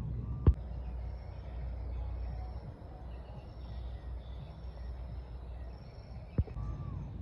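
Two sharp knocks, about six seconds apart, over a low steady rumble.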